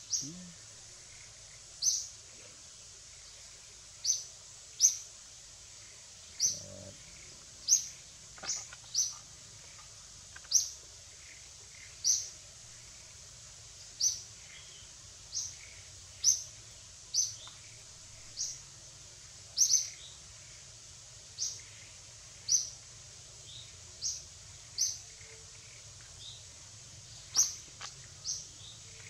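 A bird calling a short, high, sharp chirp over and over, about one every second and a half, over a faint steady background hiss.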